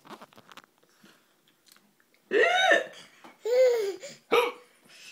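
A baby laughing in bursts: after a short quiet, two long high-pitched squealing laughs starting about two seconds in, then a shorter one near the end.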